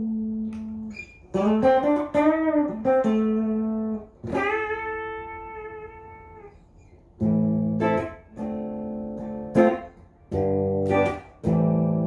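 Clean electric guitar, a PRS SE Custom 24 35th Anniversary played through a Fender Blues Deluxe Reissue amp: single held notes with a bent note that wavers in pitch, a long ringing note, then a few struck chords, each stopped short.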